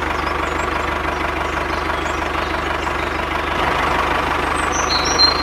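Tractor engine running steadily at idle, with a low hum and a fast, even knock.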